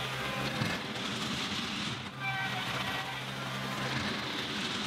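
John Deere 2038R compact tractor's three-cylinder diesel engine running steadily as the tractor moves over loose gravel, with its tires crunching on the stone.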